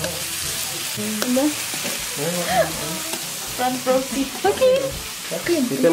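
Marinated pork slices sizzling on a hot Korean-barbecue grill plate while metal tongs stir and turn them.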